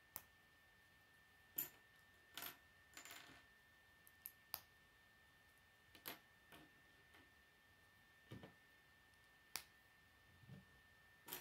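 Plastic K'nex connectors and rods clicking as they are handled and snapped together: about ten sharp, separate clicks at irregular intervals, with a short rustle of plastic pieces about three seconds in.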